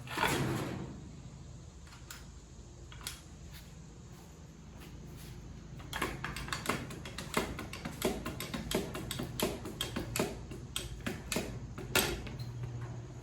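A loud metal clank and scrape as a steel wheel dolly is set around a tire. From about six seconds in, a steady run of clicks comes roughly twice a second as the dolly's jack handle is pumped to lift the tire.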